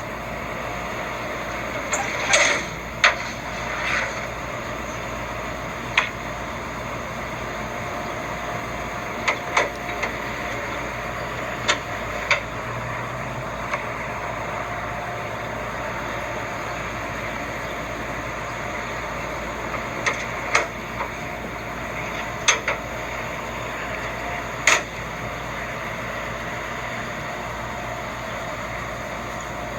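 Steady background noise with a dozen or so short, sharp clicks and knocks scattered through it.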